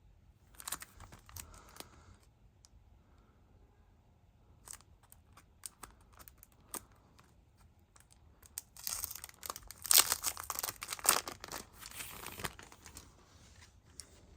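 CD packaging being torn open and crinkled by hand: a short rustle about a second in, a few scattered crackles, then a longer, louder stretch of tearing and crinkling in the second half.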